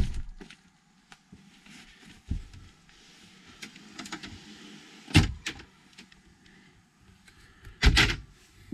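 Handling knocks and thumps: a sharp knock as the access panel at the base of the bed is set in place, then heavier thumps about five and eight seconds in, with small clicks and rustling between.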